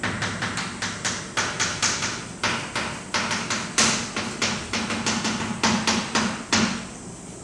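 Handwriting while working a problem: a writing tool tapping and scraping against the writing surface in quick irregular strokes, several a second, stopping near the end.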